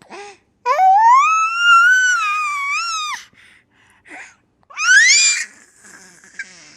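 A baby's high-pitched squealing: one long drawn-out squeal that rises in pitch and is held for about two and a half seconds, then a shorter squeal sweeping upward near the end, with short breathy sounds in between.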